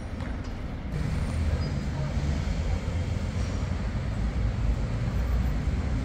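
City street traffic, a steady low rumble of passing vehicles that gets louder about a second in.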